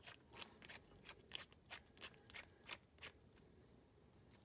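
Faint, irregular small clicks and ticks of an archery stabilizer's parts being twisted together by hand, a dozen or so over about three seconds.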